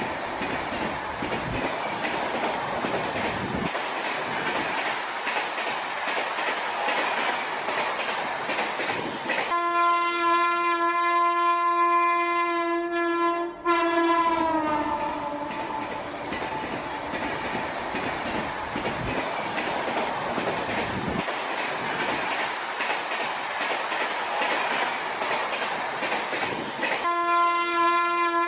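Train running past with a steady rumble and clatter. About ten seconds in, its horn sounds one long steady note for some four seconds, the pitch dropping as it ends, and the horn sounds again near the end.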